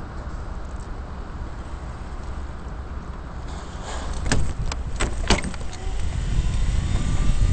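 Low rumble of a small vehicle rolling over paving stones, with a quick run of sharp rattling clicks a little past halfway. The rumble grows louder toward the end.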